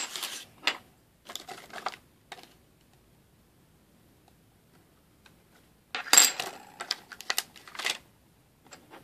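Clicking and crinkling of a clear plastic sticker sheet and small craft pieces being handled on a tabletop. The sounds come in two bursts with a quiet lull between them, and the second burst, about six seconds in, is the louder.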